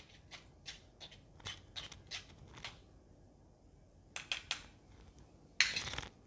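A metal spoon scraping and pressing a wet spice paste through a small steel mesh tea strainer, giving a series of short scratchy scrapes with a pause in the middle, then a louder rasp of about half a second near the end.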